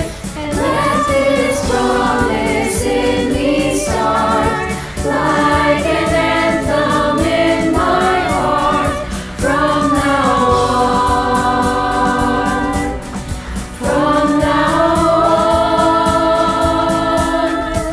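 Mixed choir of teenage voices singing in harmony, in long held phrases with short breaks between them about every four seconds.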